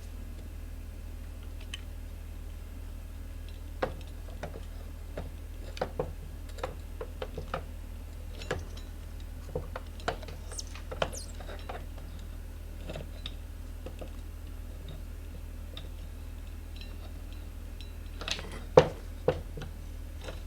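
Irregular metallic clinks and knocks from working the scooter's rear wheel axle and tools by hand, with one sharper knock near the end, over a steady low hum.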